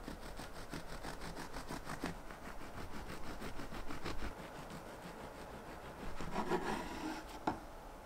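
Serrated bread knife sawing through the crusts of stacked white bread slices on a wooden cutting board, in quick, even back-and-forth strokes. Near the end there is a louder scrape and a sharp knock.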